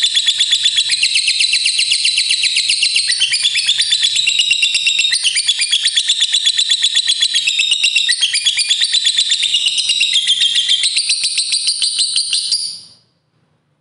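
Lovebird doing a long 'ngekek': an unbroken run of rapid, high-pitched chattering notes, about eight a second, that stops abruptly about a second before the end.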